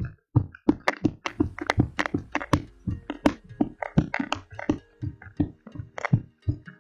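Footfalls of a person running in place with high knees on a hard floor: quick, even thuds, about three to four a second.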